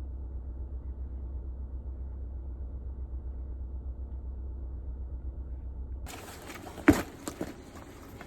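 Low steady drone of a car on the move, heard from inside the cabin. About six seconds in it cuts abruptly to open, hissy outdoor sound, with one loud sharp knock and a fainter click half a second later.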